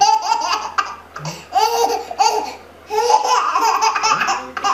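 Baby laughing hysterically in rapid bursts of high-pitched giggles, pausing briefly about halfway through, then laughing again.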